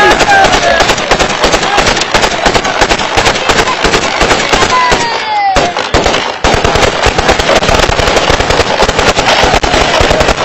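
Heavy celebratory gunfire: many rifles fired into the air at once, the shots and bursts overlapping in a continuous crackle, with men's voices shouting over it.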